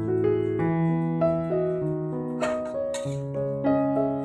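Background piano music, a run of single notes over held bass notes, with two brief noises about two and a half and three seconds in.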